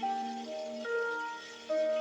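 Music: a melody of held, pitched notes changing every half second or so.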